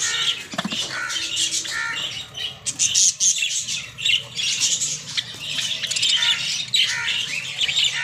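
Many caged aviary birds, budgerigars and cockatiels among them, squawking and chirping at once in a dense, continuous chatter of short high calls.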